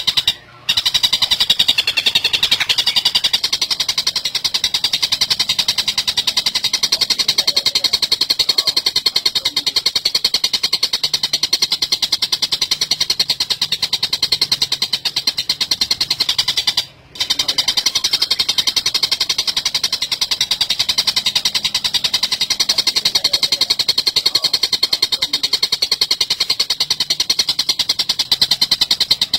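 Oriental dollarbird giving a rapid, harsh, chattering call over and over without pause. The chatter breaks off briefly twice, about half a second in and again around the middle.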